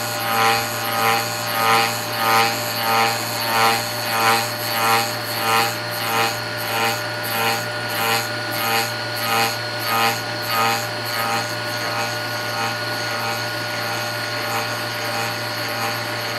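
Stepper-motor-driven rose engine lathe running, its belt-driven cutter cutting ash: a steady motor whine under a cutting sound that swells and fades about one and a half times a second as the rosette rocks the work against the cutter. The pulsing dies away after about eleven seconds as the cutter stops taking wood at this depth.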